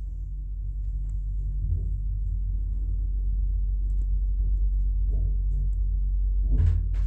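Passenger lift car travelling between floors: a steady low rumble, with a short knock near the end.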